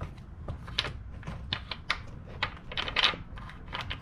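Irregular light clicks and taps, with a denser cluster about three seconds in, as the oil filler cap is twisted off the valve cover of a Nissan SR20DE engine.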